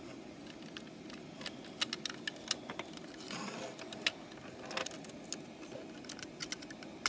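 Small scattered plastic clicks and light rattles of LEGO train parts being handled and fitted together, with a brief scraping rustle about three and a half seconds in.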